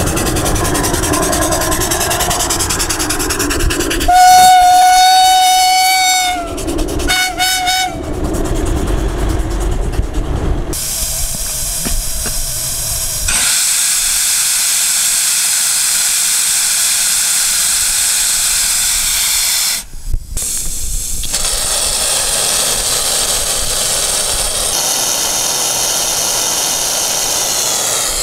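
Homemade steam motorcycle: the steam engine running, then about four seconds in a steam whistle blows one long blast, followed by two short toots. From about halfway on, a loud steady hiss of steam jetting out of a valve on the boiler.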